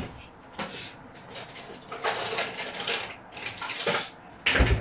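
Raw mutton pieces being mixed with spices in a bowl: repeated scraping and clinking against the bowl, with a heavier thump near the end.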